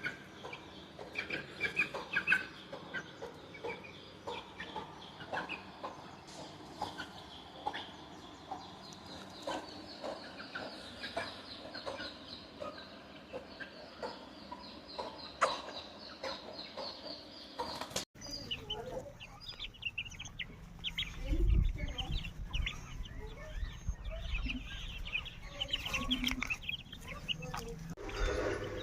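Aseel gamefowl clucking in short, scattered calls. About 18 seconds in the background changes abruptly, and a low rumble follows a few seconds later.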